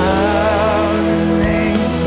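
Background music: slow song with held chords and a steady low bass, a melody line wavering with vibrato in the first second.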